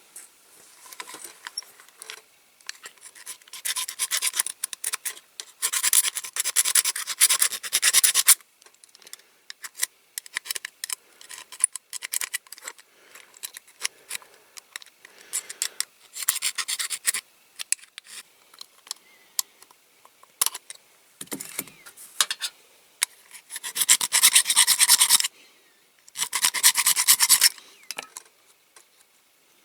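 Small hand file rasping on the metal pin of a diecast model's chassis, in several bouts of quick back-and-forth strokes, each one to two seconds long, with short pauses and light taps between them.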